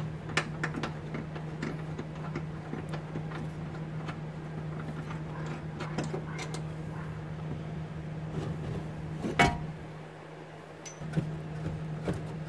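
Small clicks and metal clinks as engine mount bracket bolts are taken out and handled by hand, with one sharper clink about nine seconds in. A steady low hum runs underneath.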